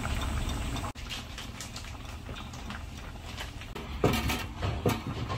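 A pot of doenjang stew bubbling at a boil on a gas burner. After about a second it cuts to a cloth wiping a tabletop, with a few knocks about four seconds in.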